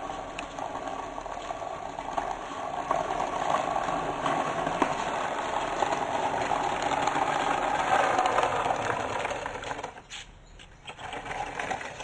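Small wheels of a homemade wooden board cart rolling over concrete, a steady mechanical run that grows louder as the cart comes closer. It drops away about ten seconds in and picks up again near the end.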